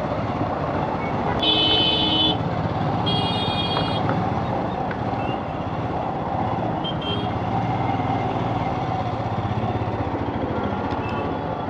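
Royal Enfield Scram 411 motorcycle engine running steadily while riding in city traffic. Vehicle horns honk twice in the first four seconds, with a brief beep about seven seconds in.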